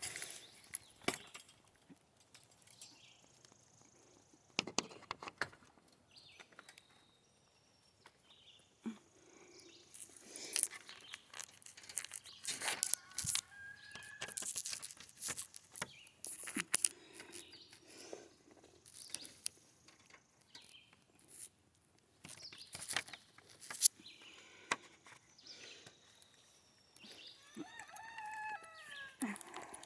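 Chickens in a coop clucking now and then, with scattered knocks and rustles; the clearest run of calls comes near the end.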